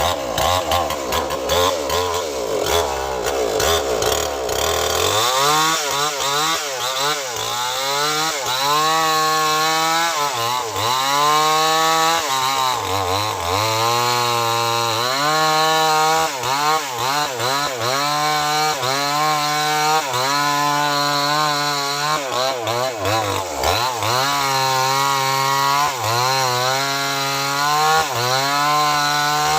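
Small two-stroke chainsaw: it comes in suddenly and runs low and steady for about five seconds, then goes to high revs. For the rest of the time its pitch keeps dipping and climbing again as it cuts into a very large tree trunk.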